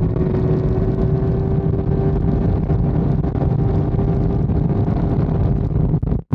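Kawasaki ZX-10R inline-four sportbike engine held at high revs in a top-speed run at about 150–160 mph, its steady tone sagging slightly in pitch, under heavy wind buffeting on the microphone. The sound cuts out briefly near the end.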